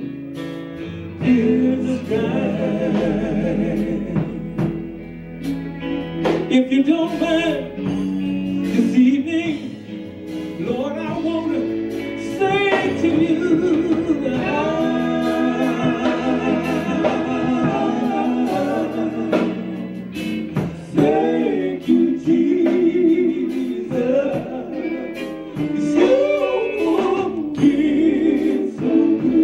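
Male gospel quartet singing in harmony over electric guitar, the lead voice holding a long note with vibrato midway through.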